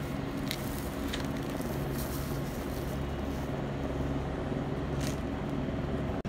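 Steady low hum of heavy truck engines idling, with a few short hiss-like rustles.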